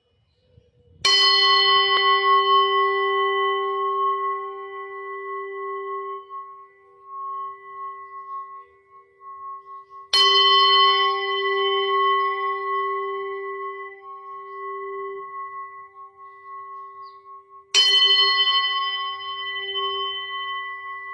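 A singing bowl struck three times, about eight seconds apart, each strike ringing on in a long, slowly fading tone that pulses and wavers.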